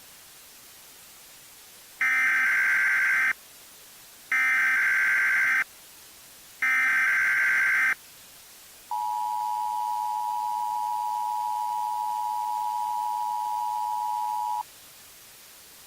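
Emergency Alert System header: three short bursts of warbling SAME data tones, then the two-tone EAS attention signal held steady for about six seconds, announcing an emergency alert.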